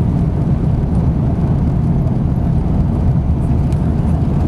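Steady low rumble heard from inside a moving vehicle, with no change in level.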